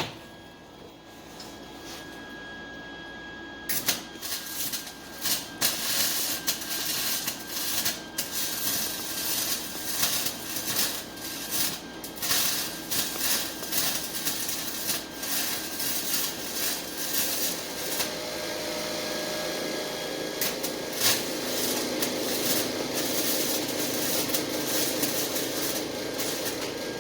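Electric arc welding on an exhaust pipe: the arc crackles and spatters, starting about four seconds in, uneven and sputtering at first, then a steadier sizzle from about eighteen seconds.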